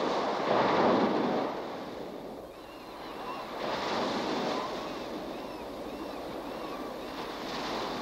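Heavy sea surf breaking against a rocky shore, in two swells: one in the first second or so, and another about four seconds in, with wind.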